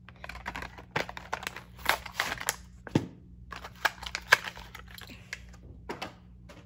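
A Hot Wheels blister pack being opened by hand: the plastic bubble and card crackle and crinkle in short, irregular bursts of clicks.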